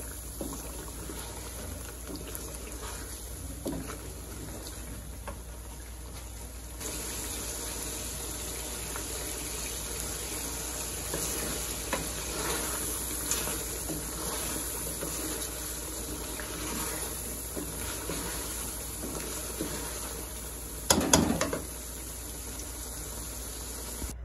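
Chicken karahi gravy sizzling and bubbling in a metal pot as a wooden spoon stirs it, a steady low hiss that gets a little louder about seven seconds in. About three seconds before the end comes a brief cluster of louder knocks.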